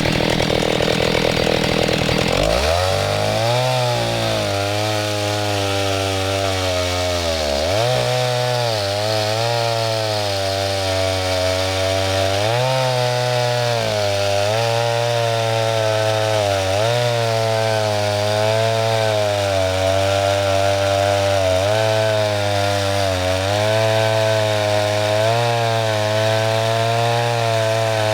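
Old Stihl 08 S two-stroke chainsaw running under load, cutting wood. After about two seconds the engine note drops and then keeps wavering, dipping and recovering as the chain works through the cut.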